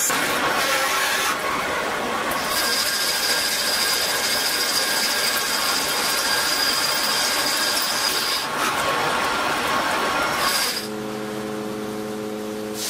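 Metal lathe turning a steel workpiece under coolant: a steady cutting noise, with a thin high whine held through the middle. Near the end it gives way to a quieter steady hum.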